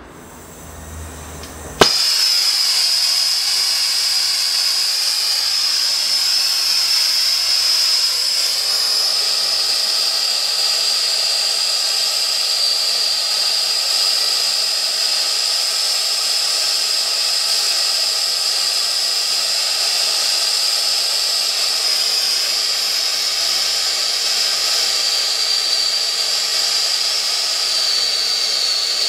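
A gas brazing torch comes on with a sharp click about two seconds in, then burns with a loud, steady hiss as its flame heats a copper pipe for a brazed patch.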